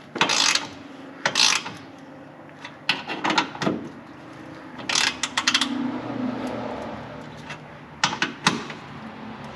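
A ratchet wrench working in short bursts of strokes, tightening exhaust pipe clamps; about six separate bursts.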